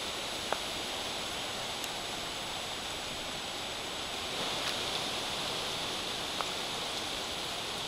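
Steady rushing hiss of tropical-storm wind through the leaves of swaying trees, with a few faint ticks.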